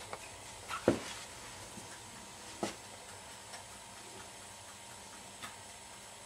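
Hens pecking and stepping at a tray: a few separate sharp taps, the loudest about a second in, over quiet room tone.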